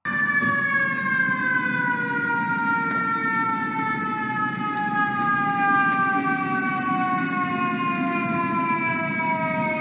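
Fire truck siren sounding one long, slow wail that falls steadily in pitch, over a low rumble.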